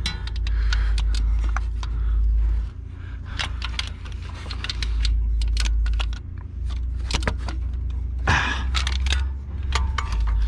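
A ratchet wrench working a bolt loose: irregular metallic clicks and clinks of the tool, over a steady low rumble.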